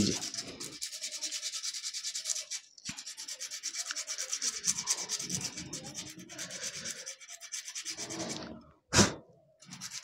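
Sandpaper rubbed in quick back-and-forth strokes over the friction linings of a Honda Aviator's CVT centrifugal clutch shoes, smoothing them, with a brief pause about three seconds in. The strokes stop shortly before the end, followed by one short, louder noise.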